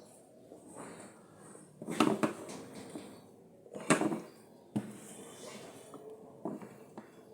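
Hard knocks and clatter of DeWalt drill parts being handled and set in place during reassembly, two louder knocks about two and four seconds in and a few lighter taps after.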